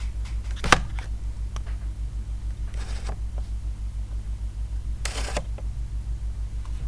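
A few isolated sounds from a GK61 mechanical keyboard with lubed Gateron Red switches: one sharp click about a second in and two short swishy clacks later. Under them runs a steady, pulsing low hum.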